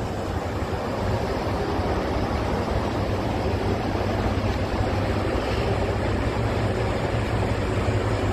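Diesel railcar running and pulling away along the station platform: a steady low engine drone under an even rushing noise.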